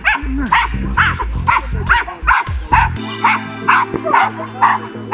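A dog barking repeatedly and steadily, about two to three barks a second, over background music.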